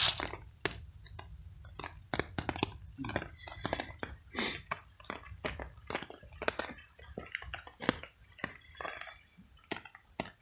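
Tabby cat chewing pieces of cooked veal: an irregular string of short smacks and clicks, with one loud sharp sound right at the start.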